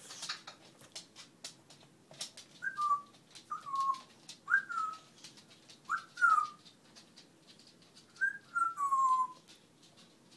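A dog making a string of short, high whines that each fall in pitch, ending in a longer stepped whine, like chattering. Soft clicks sound between them.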